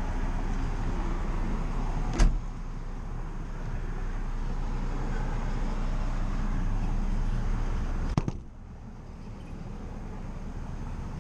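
The glass rear hatch of an A.R.E. truck cap shut about eight seconds in, a quick double clack, after which the background sound drops. A single sharp knock comes about two seconds in, over a steady background hum.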